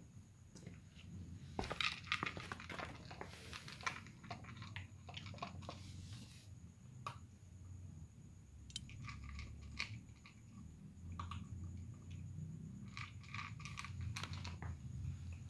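Several cats crunching dry kibble, with irregular crisp crunches and clicks coming in bursts over a low steady background rumble.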